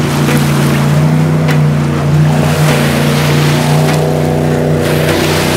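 Motorboat engine running with a steady drone over a rushing noise, with no real rise or fall in pitch.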